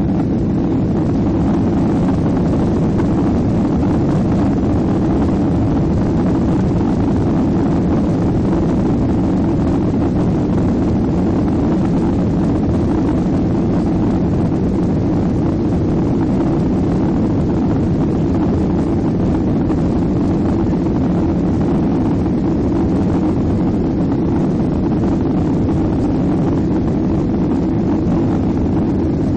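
Boeing 737-800 on its take-off roll heard from inside the passenger cabin: its CFM56-7B engines running at take-off thrust, a loud, steady, deep rumble with a rushing hiss over it.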